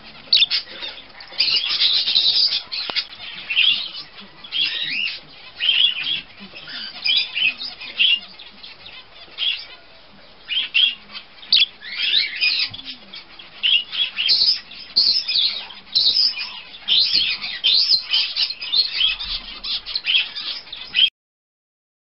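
Budgerigar chattering: a rapid, irregular run of short high chirps and squawks that cuts off suddenly near the end.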